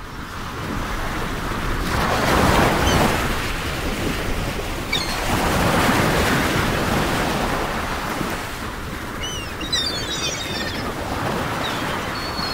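Wind and choppy river water: a steady rushing noise that swells and eases in gusts, with wind buffeting the microphone. A few faint high chirps come in about ten seconds in.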